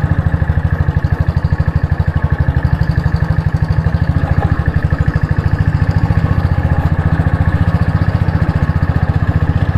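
Motorcycle engine running steadily while riding, a fast even putter with no change in pace.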